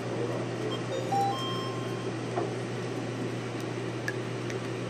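Steady low mechanical hum of room equipment, with a few faint short high tones about a second in and a few small clicks.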